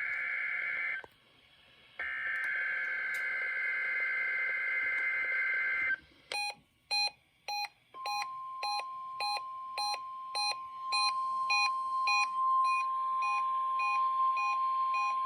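NOAA Weather Radio Required Weekly Test alert signals. First come bursts of buzzy SAME digital header data, with a gap of about a second near the start. About six seconds in, an alert receiver starts beeping two or three times a second. About two seconds later the steady 1050 Hz warning alarm tone joins it and holds under the beeps.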